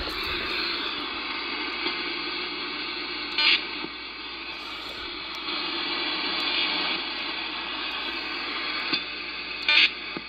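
Steady static hiss from an HF/VHF transceiver's speaker tuned to 27.025 MHz in AM mode, with two short louder bursts, one about three and a half seconds in and one near the end.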